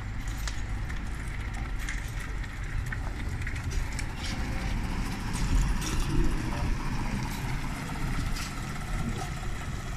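A double-deck electric trolleybus driving past close by. Its low rumble swells to a peak about six seconds in as it goes by.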